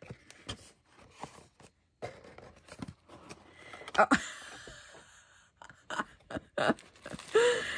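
A cardboard gift box being opened by hand: scattered taps and clicks from the flaps, then crinkly rustling as the bubble-wrapped ornament inside is handled.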